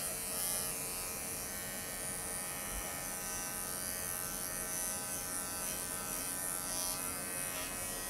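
Wahl Creativa cordless dog clipper, its 5-in-1 blade set to a 15, running steadily with an even hum as it clips the belly and groin hair of a toy poodle.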